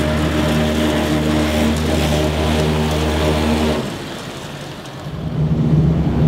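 A vehicle engine runs with a steady low hum that stops abruptly about four seconds in. After a brief quieter moment, a truck engine is heard running again from inside the cab.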